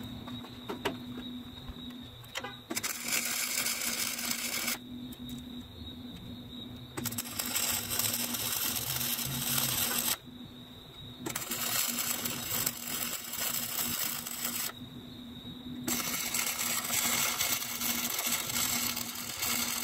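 MIG welder arc crackling and hissing as short stitch welds are laid on a steel mounting bracket: four welds of about two to four seconds each, each starting and stopping abruptly.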